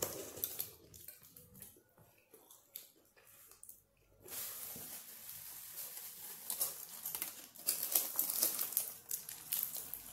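Close-up eating sounds: a shawarma wrap being handled, torn and eaten, with crinkling, tearing and small clicks. Scattered at first, then a continuous crinkly rustle from about four seconds in.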